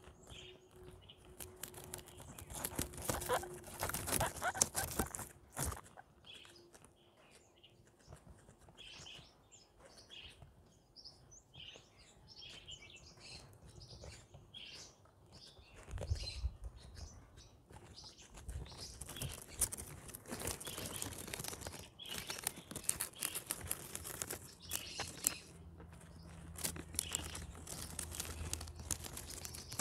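Guinea pigs eating, chewing and tearing at plants: a long run of crisp crunching clicks and rustling, louder for a couple of seconds about three seconds in and again from about twenty seconds in, with small high chirps scattered through.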